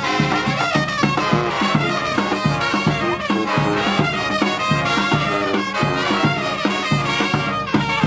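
Live brass band playing: trumpets and trombones carry a melody over a steady bass drum beat.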